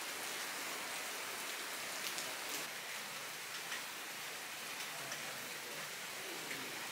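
Heavy rain falling steadily, an even hiss with scattered drops ticking now and then.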